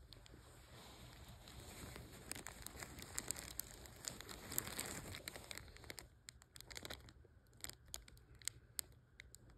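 Paper towel rustling softly as it is handled, then a thin clear plastic bag crinkling in sharp, separate crackles over the last few seconds.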